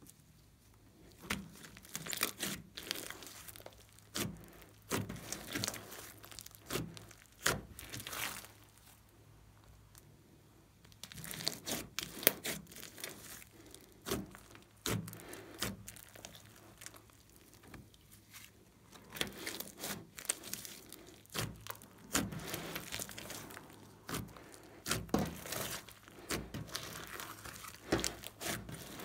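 Hands kneading, squeezing and pulling apart a large mass of glossy slime: clusters of sticky crackles, pops and tearing sounds, with a couple of short pauses.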